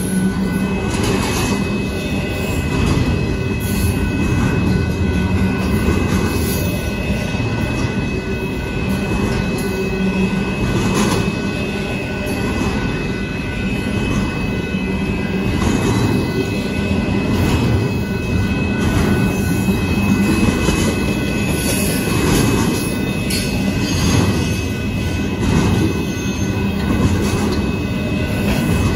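Double-stack intermodal freight cars rolling steadily past a grade crossing: a loud, continuous rumble of steel wheels on rail, with irregular clacks as the wheel sets pass over joints, and a thin steady high squeal from the wheels.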